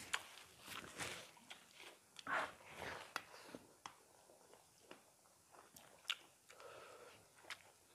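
Close-up eating sounds from two people eating chicken curry and rice by hand: chewing, mouth clicks and fingers working through rice on steel plates, in scattered short clicks and soft wet smears.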